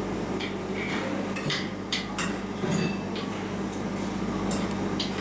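A metal spoon clinking and scraping against a plate of katsu curry and rice while eating, as scattered short clinks over a steady low hum.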